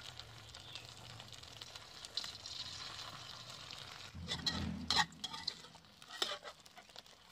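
Beaten egg and cha-om shoots frying in hot oil in an aluminium wok, sizzling steadily, while a metal ladle pushes the egg about. About four to five seconds in the ladle scrapes and knocks against the wok more loudly, with a few more clicks a second or so later.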